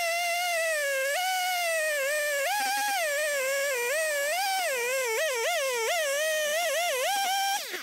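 Chainsaw running under load as it cuts through a fallen tree trunk, its whine wavering up and down in pitch as the cut bites and eases. It dips briefly near the end.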